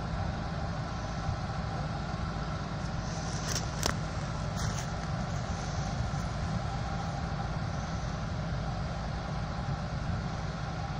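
Off-road 4x4's engine running steadily and hard while the vehicle sits stuck in mud, with two sharp clicks about three and a half seconds in.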